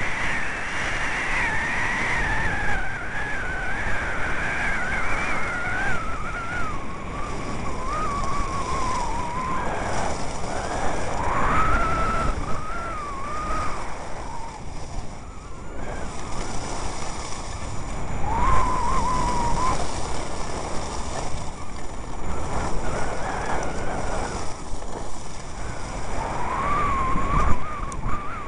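Wind rushing over the microphone during a downhill run on a groomed piste, with the hiss and scrape of sliding over the hard-packed snow. A thin wavering whistle drifts slowly in pitch on and off throughout.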